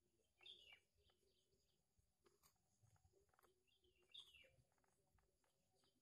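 Faint bird chirps over near silence: two short calls falling in pitch, about four seconds apart.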